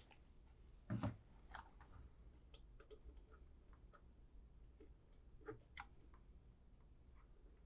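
Faint, scattered clicks and ticks of a small screwdriver working the screw terminals of an alarm power supply board while wires are fitted, with one duller knock about a second in.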